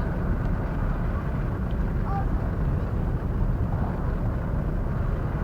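Steady low rumble of a large ferry manoeuvring at the dock, with faint distant voices.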